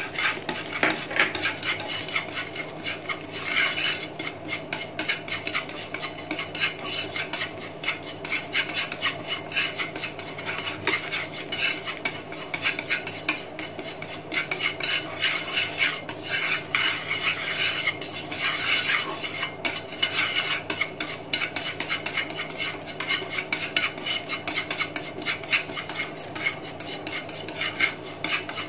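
Wooden chopsticks stirring and scraping sesame seeds around a dry nonstick frying pan as the seeds are toasted. It is a continuous, quick scratching and rattling of seeds and wood against the pan, over a steady low hum.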